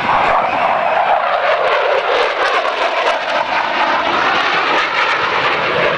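F-16 fighter jet's engine noise as it flies past: a loud, continuous rushing roar whose pitch sinks slightly over the first few seconds.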